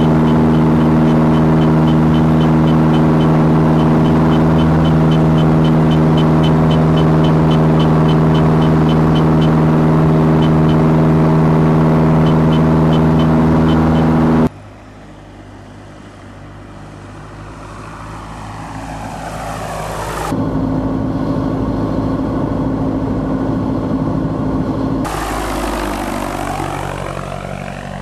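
Single-engine propeller airplane, a 160-horsepower OMF Symphony, in flight. For about the first fourteen seconds it gives a loud, steady engine drone with a fast ticking over it. Then, after a sudden cut, it is heard from outside, growing louder and sweeping in pitch as it passes, with two more abrupt cuts between passes.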